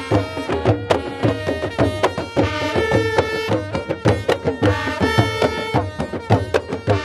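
Traditional drum ensemble playing a fast, dense rhythm on pitched hand drums, some strokes bending in pitch, with a few long held higher notes over the drumming.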